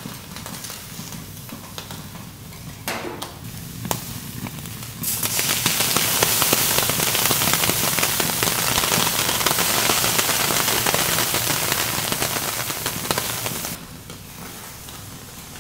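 Liquid hitting a hot steel teppanyaki griddle around abalone in their shells: a loud burst of sizzling and crackling that starts about five seconds in and cuts off sharply near the end. A couple of light clicks come before it.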